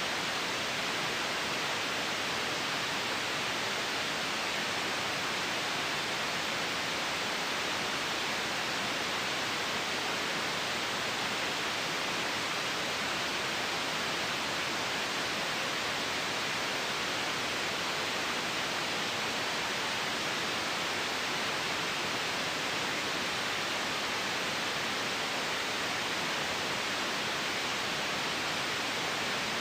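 Continuous white noise: an even, unchanging hiss with no rhythm or events.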